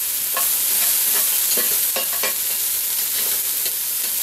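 Diced onion, red chili peppers and garlic sizzling in hot oil in a cast-iron Dutch oven, stirred with a wooden spoon that scrapes the pot irregularly.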